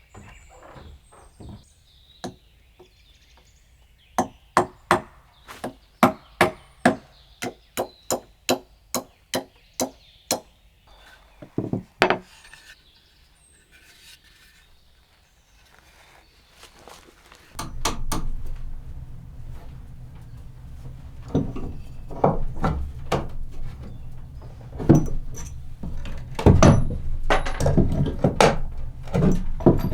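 A steady run of about a dozen hammer blows on wood, about two a second, then a couple more knocks. Past the middle a low steady rumble sets in, with irregular knocks and thuds over it.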